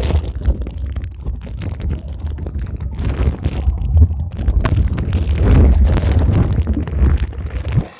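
Camera microphone underwater in a swimming pool, sealed in a plastic bag: a loud muffled rumble of moving water with many small crackles and knocks of the bag rubbing against the microphone. The sound drops away suddenly near the end.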